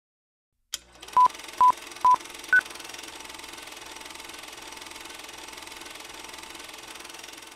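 A click, then four short electronic beeps about half a second apart, three at the same pitch and the fourth higher, followed by a steady faint hiss.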